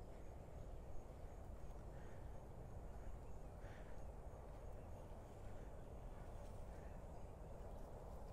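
Faint, steady outdoor background noise, mostly low rumble, with a few faint short high chirps scattered through it.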